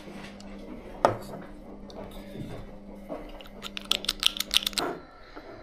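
Hard plastic parts of a 3D-printed battery adapter being handled: a single click about a second in, then a quick run of about ten clicks and taps near the end.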